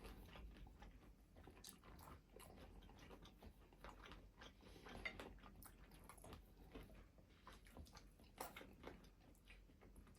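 Faint chewing and biting: the close-up mouth noises of someone eating, a scatter of small wet clicks and crunches, one a little louder near the end.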